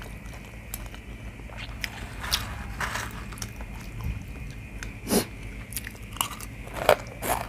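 Close-up chewing and mouth sounds of a person eating chicken giblets stir-fried with holy basil over rice, with scattered short clicks and smacks.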